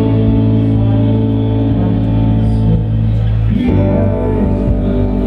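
Live indie pop band playing an instrumental passage: electric guitar over bass, holding sustained chords that change about three and a half seconds in.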